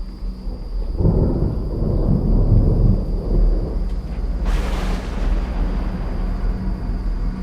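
Thunder rumbling, rising about a second in and easing off, followed by a short hissing burst of noise near the middle.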